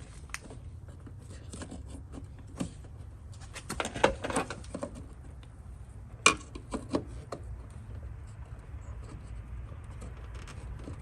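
Clicks and rattles of small plastic parts being handled as a new liftgate window switch is fitted to its wiring plug, with a cluster of clicks about four seconds in and one sharp click about six seconds in.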